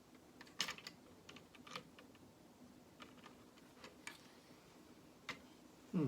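Plastic Lego pieces clicking as they are handled and pressed together: scattered light clicks at irregular intervals, a few in quick pairs.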